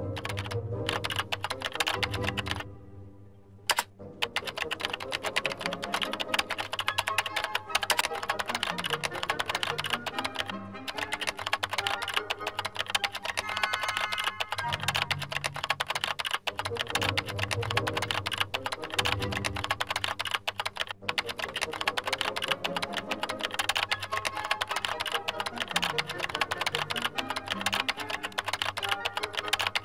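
Rapid, continuous computer keyboard typing over background music.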